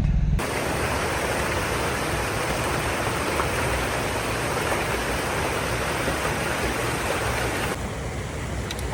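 Steady rush of water pouring through a river spillway, an even noise that stays level and eases slightly near the end.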